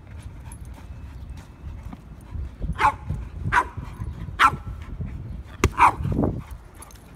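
A dog barking in short, sharp barks, about four over three seconds, with a sharp knock among the last of them.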